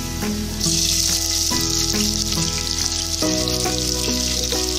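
Hot oil sizzling in a pressure cooker with garlic and whole spices; about half a second in the sizzle jumps louder as sliced onions go into the oil. Background music plays throughout.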